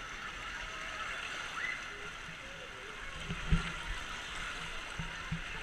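Steady rush of surf and moving water, with a few short low thumps, the loudest about halfway through.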